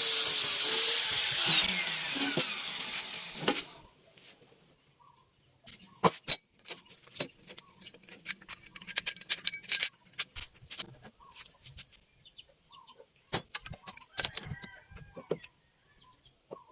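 A high-speed power tool whining at full speed, then winding down with a falling pitch after it is switched off, stopping about four seconds in. Scattered sharp clicks and taps of metal parts being handled follow.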